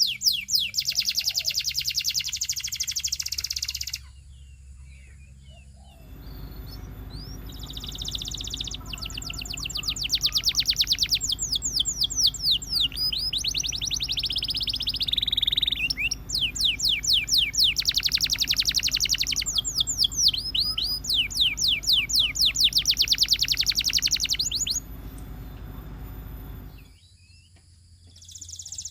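Domestic canary singing in rapid trills of repeated whistled notes, phrase after phrase, with a short break about four seconds in and a pause near the end.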